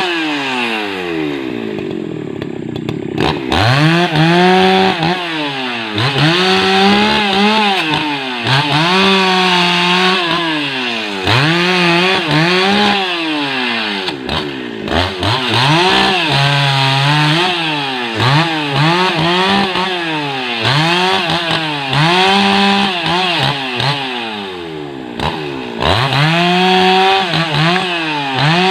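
Husqvarna 288XP two-stroke chainsaw cutting rubberwood. The engine revs up, holds and drops back again roughly every two seconds.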